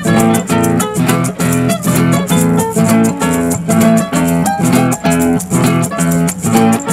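Instrumental break of a Colombian música campesina song: acoustic guitar picking a quick melody while maracas shake a steady rhythm.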